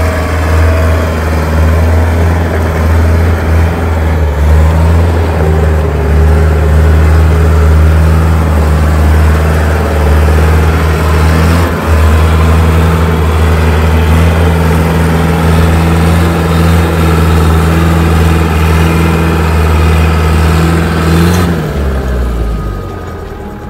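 Mercedes-Benz 608D motorhome's diesel engine running loudly at a steady speed under way, then dropping in pitch and fading near the end as it slows.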